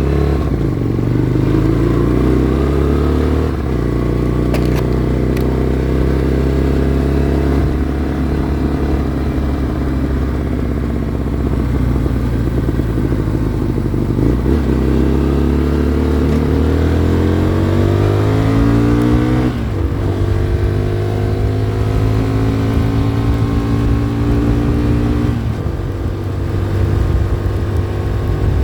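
Hyosung Comet GT 250's V-twin engine pulling as the motorcycle is ridden, revs climbing and then dropping sharply at gear changes about three times, with wind noise on the microphone.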